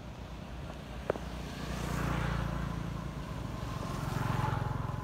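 Engine noise of passing motor vehicles, swelling and fading twice, about two seconds apart. There is a single sharp click about a second in.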